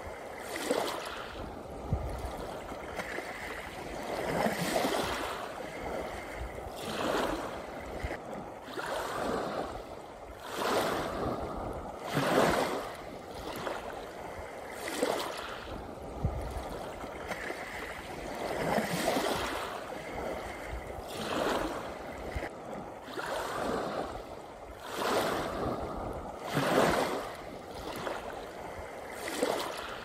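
Waves breaking against a shore, each surge of wash swelling and fading every two to three seconds, with two stronger surges, one about a third of the way in and one near the end.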